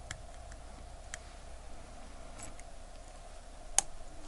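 A few faint, sharp metallic clicks as the tip of a slim Bergeon tool is pressed and shifted against the watch case, probing for the stem-release button to free the crown; the loudest click comes near the end.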